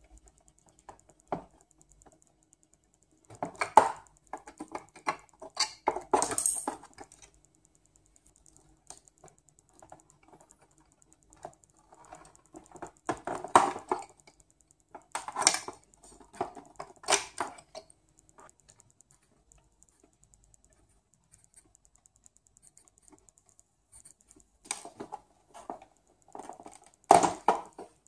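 Plastic keys of an M-Audio Axiom 49 MIDI keyboard clicking and clacking as they are pried off their mounts with a screwdriver and handled. The clacks come in irregular clusters with quiet gaps between.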